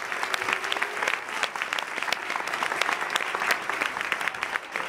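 Audience applauding, many hands clapping densely without a break.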